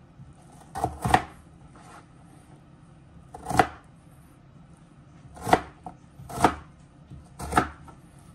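Kitchen knife chopping raw potato into cubes, six separate sharp chops: two close together about a second in, then single chops a second or two apart.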